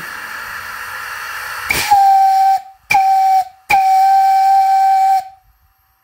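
Brass steam whistle on a small fire-tube boiler, blown by its pull cord: steady steam hiss for about two seconds, then three loud blasts on one steady pitch, two short and a final longer one of about a second and a half.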